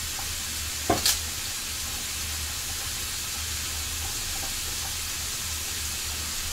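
Food sizzling in a frying pan on the stove, a steady hiss, with two quick knocks of a utensil against the pan about a second in.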